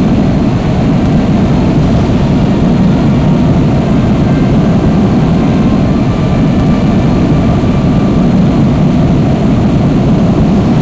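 Jet airliner engines running with a steady, loud, even rushing noise that starts abruptly and holds unchanged.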